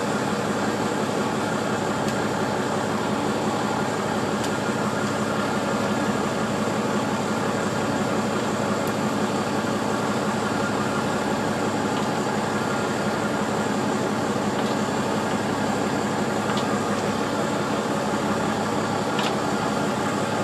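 A fishing boat's engine running steadily, an even hum that does not change, with a few faint ticks.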